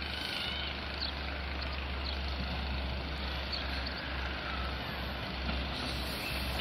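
Steady low rumble of an approaching Long Island Rail Road diesel-electric push-pull train, its DE30AC locomotive pushing from the rear.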